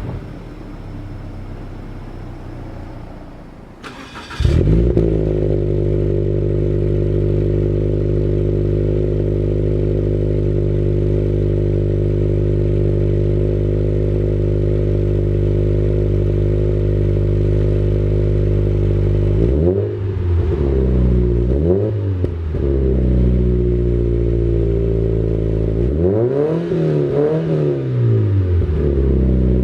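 Scion FR-S/Subaru BRZ flat-four engine heard through its exhaust: it starts about four seconds in and settles into a steady idle, then is blipped twice and given one longer rev that rises and falls back to idle near the end.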